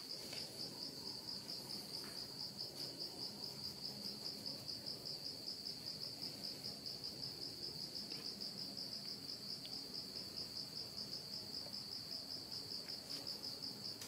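Insects chirring: a steady, high-pitched trill that pulses rapidly and evenly.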